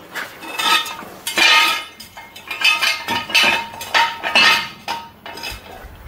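Steel jack stand being handled and set in place under a truck: a run of metallic clanks and clinks, each with a short ring, about one every half second to a second.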